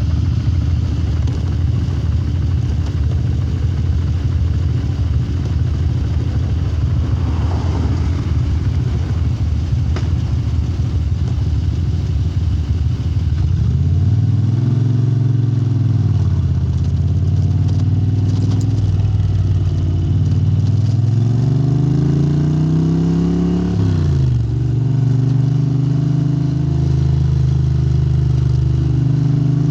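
Moto Guzzi 90-degree V-twin running through Lafranconi exhausts. For the first half it is buried under a dense, noisy rumble. Then the engine note comes through clearly, rising and falling with the throttle, dropping sharply about two-thirds of the way through and then holding steady.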